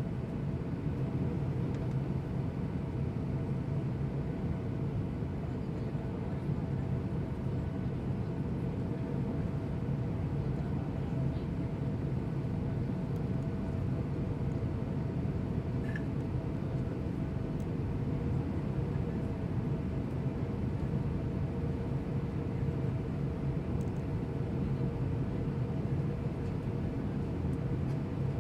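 Passenger airliner cabin noise: a steady rush of engine and air noise with a constant low hum and a faint steady tone running through it.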